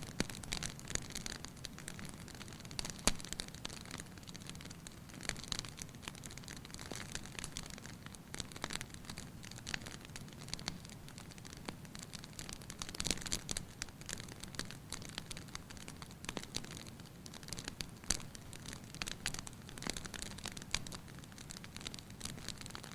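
Wood fire in a fireplace crackling, with dense irregular pops over a low steady rumble; one sharper pop about three seconds in.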